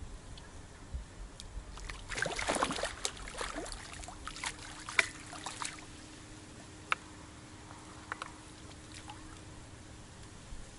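A hooked fish splashing at the water's surface as it is drawn into a landing net, loudest in a burst about two seconds in, followed by scattered smaller splashes and drips.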